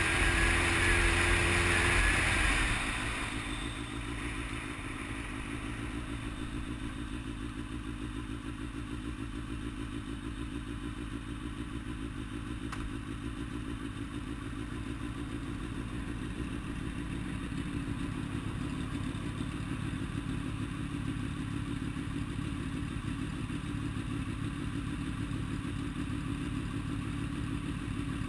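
Motorcycle heard from the rider's seat: a rush of wind and engine for the first couple of seconds as the bike slows, then the engine idling steadily while stopped.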